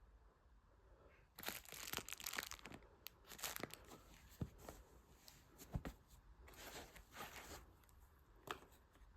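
Packaging being handled and torn open: irregular crinkling and tearing in short bursts, with a couple of small knocks.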